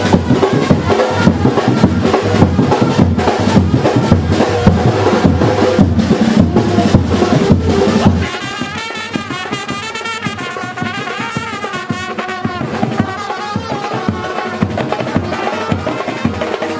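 Music driven by loud, dense drumming. About eight seconds in it drops in level, and a wavering melody comes in over lighter percussion.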